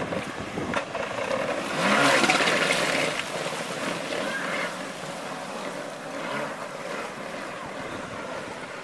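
Stand-up jet ski running on the water with a rushing, noisy wash, swelling loudest for about a second two seconds in.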